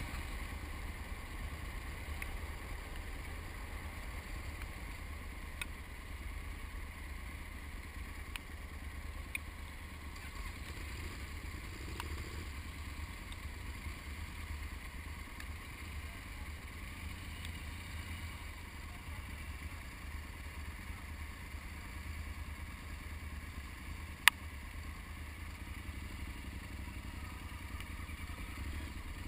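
Motorcycle engine idling with a steady low rumble, with a single sharp click about 24 seconds in.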